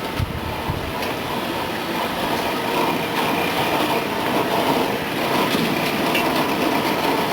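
Gas-fired continuous frying machine running: a steady mechanical noise with a hiss and a few light clicks.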